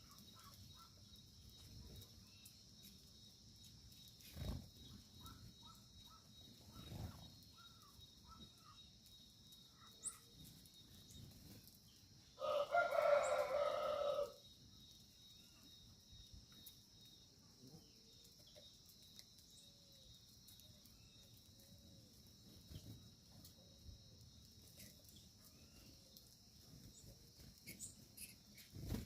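A rooster crows once, a single call of about two seconds near the middle. Around it are faint scattered bird chirps over a steady high hiss.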